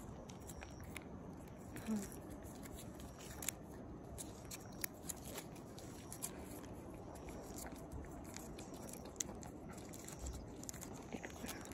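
A cat licking and eating a paste treat from a squeeze tube: irregular small clicks and smacks of its tongue and mouth.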